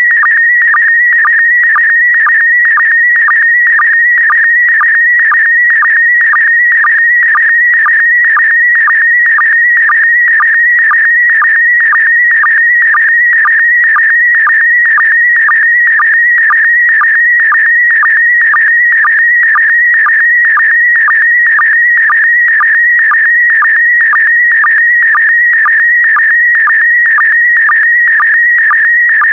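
PD120 slow-scan TV (SSTV) image signal: a loud, steady, high warbling tone that carries a picture line by line, broken by a short lower sync pulse about twice a second.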